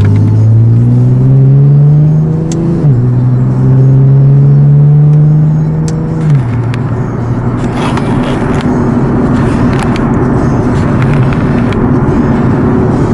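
Nissan 370Z's 3.7-litre V6 through a Speed Daddy full exhaust, accelerating hard: the note rises, drops at an upshift about three seconds in, rises again and drops at a second upshift about six seconds in. It then settles into a steady cruise with a constant drone and road noise.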